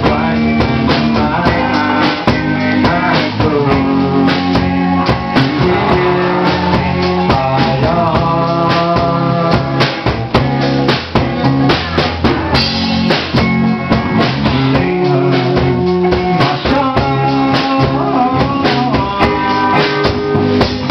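Instrumental break of a song: a drum kit keeping a steady beat under held guitar and keyboard-like notes, with no singing.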